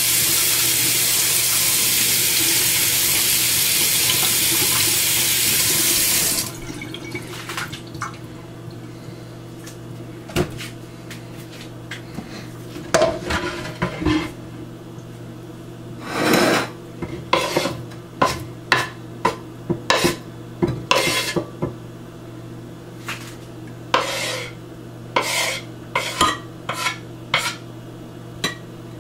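Kitchen faucet running into a stainless steel sink, shut off suddenly about six seconds in. After that, irregular knocks and clatters of kitchenware and a wooden cutting board being handled at the sink.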